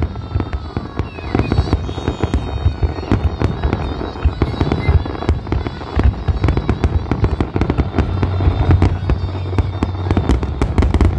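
Aerial fireworks going off in a dense barrage: rapid, overlapping bangs and crackling bursts without a break, with music playing underneath.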